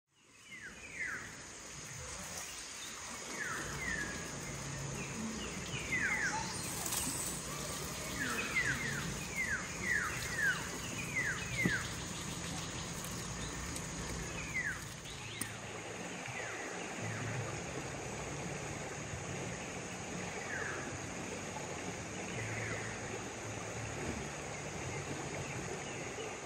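Birds calling in short falling chirps, often several in quick succession, over a steady high insect drone and outdoor background noise.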